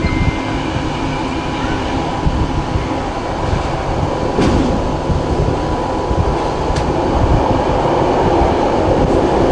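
Steady running noise of a slow passenger train heard from inside the carriage: wheels rumbling on the track, a faint steady whine, and two short clicks midway.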